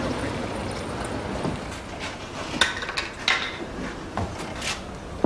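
Metal clinking and knocking: a handful of sharp strikes in the second half, as hand tools and metal parts are handled in a garage workshop.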